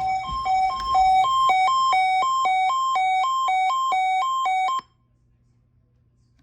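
Emergency alert attention signal: two tones alternating high and low, about two cycles a second, which cuts off abruptly about five seconds in. A low rumble runs under the first second, and after the cutoff there is near silence.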